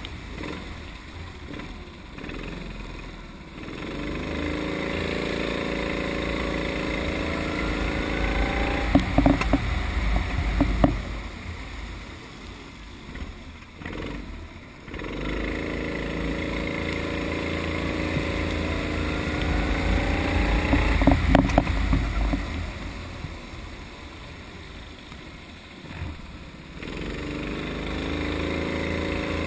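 Go-kart engine on a wet circuit, rising in pitch as it accelerates out of the corners about four, fifteen and twenty-seven seconds in, then falling away as the driver lifts off into the corners. A low rumble runs underneath.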